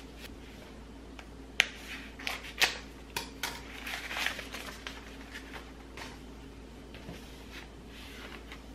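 Hands handling and unrolling a rolled cotton tea towel on a countertop: a run of sharp taps and rustling, busiest from about one and a half to four and a half seconds in, then a few faint touches, over a steady low room hum.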